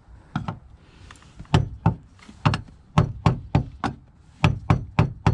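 A hammer striking a long flathead screwdriver set against the fuel pump locking collar of a BMW E46, a series of sharp taps that come faster in the second half, knocking the tight collar round to break it loose in place of the special removal tool.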